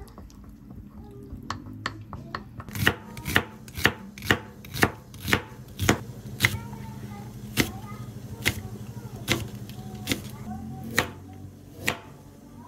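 Chef's knife chopping green onion and carrot on a plastic cutting board: sharp chops about two a second, slowing to about one a second after the middle.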